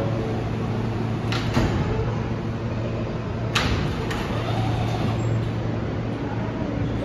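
Alstom R160A subway train standing at a station with its doors open, its air-conditioning and electrical equipment giving a steady low hum. A knock sounds about a second and a half in, and a sharper, louder one about three and a half seconds in.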